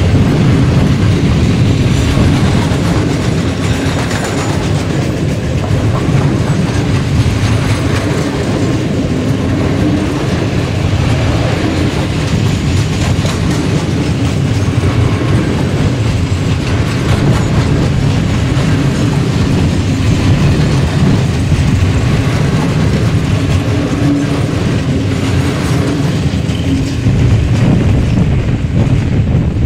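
Freight train of loaded timber wagons rolling past at close range: a steady, loud rumble with wheels clattering over the rail joints. Near the end the sound thins out as the last wagon goes by.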